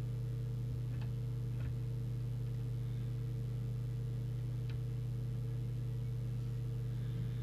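Steady electrical mains hum from the bench, with a few faint ticks as an alignment tool turns the core of a transmit coil in a CB radio.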